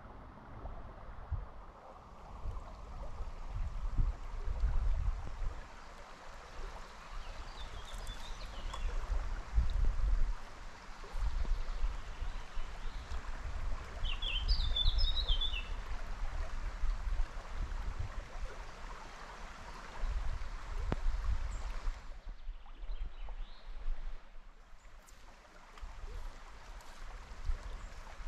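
Stream water running steadily over a riffle, with irregular low rumbles on the microphone. A small bird chirps briefly about eight seconds in and again around fourteen seconds. The water sound dips for a few seconds about twenty-two seconds in.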